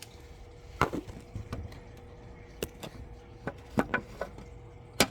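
A string of about ten sharp clicks and knocks at irregular intervals, the loudest about a second in and another near the end, over a faint steady hum.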